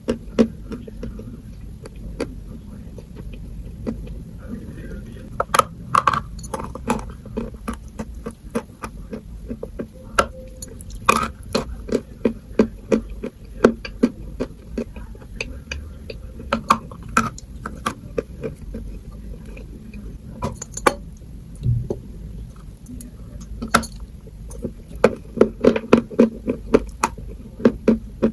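Close-up crunching and chewing of eating chalk: sharp crunches come irregularly throughout, with a quick run of them near the end.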